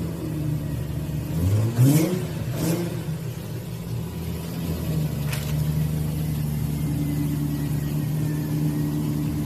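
Car engine idling steadily, briefly revved twice in the first three seconds.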